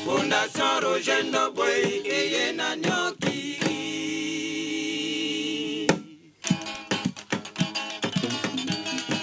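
Singing over electric guitar, then a long held chord. About six seconds in the music breaks off briefly, and it comes back with sharp, regular percussive beats.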